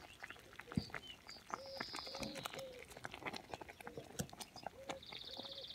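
Wooden spoon stirring a thick, simmering berry mixture in a stainless-steel pot, with soft clicks and pops from the bubbling. Birds chirp faintly in the background, with a short trill near the end.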